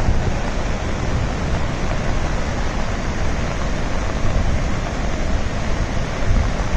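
Large waterfall's falling water: a steady, even rushing noise with a heavy low rumble underneath.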